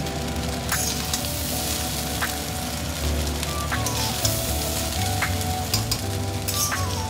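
Egg fried rice sizzling as it is stir-fried in a kadai over a high gas flame, with a metal spatula scraping through it and knocking against the pan every second or so.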